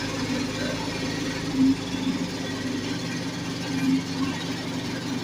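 An engine running steadily at idle, a low even drone, with a couple of brief louder sounds over it.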